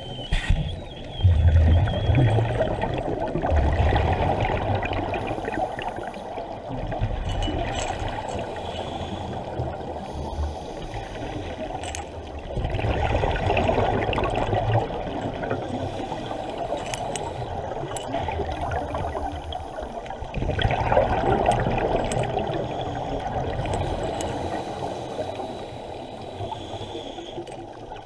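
Scuba divers' exhaled bubbles heard underwater: bubbling, gurgling surges every few seconds over a steady rush of water noise.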